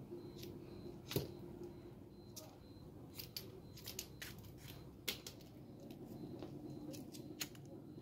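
A scattered series of small, sharp clicks and ticks from hands working the waxed-thread stitching of a leather keychain, over a faint steady hum.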